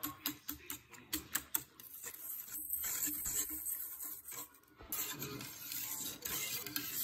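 Wire whisk stirring flour into juice in a metal pan: quick ticking strokes, about five a second, for the first couple of seconds, then a steadier scraping rub of wire on the pan.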